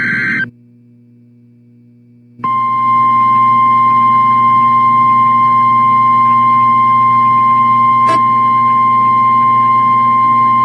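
The last half-second of an EAS SAME header data burst, a buzzy digital screech, then after a short pause the steady single-pitch NWS 1050 Hz alert tone, held for about nine seconds. It signals that a weather alert message follows. A low hum runs underneath throughout.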